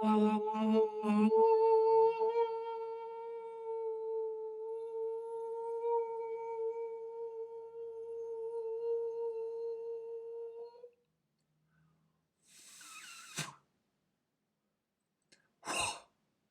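A man's voice in wordless vocal toning, holding one high, steady tone for about eleven seconds after a few quick pulses at the start, then stopping. Two audible breaths follow in the silence.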